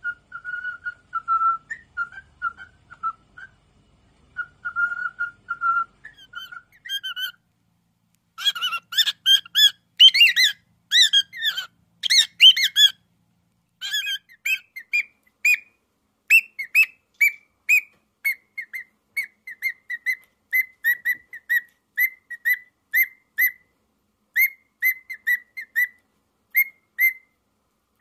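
Cockatiels whistling their song. First comes a run of short clear whistles at one pitch, then a busier stretch of quick notes sliding up and down, then short whistles repeated rapidly in little groups.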